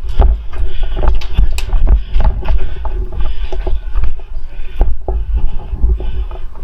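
Heavy rumble and buffeting on a body-worn camera microphone from wind and movement, with irregular clicks, knocks and rustles of gear and brush.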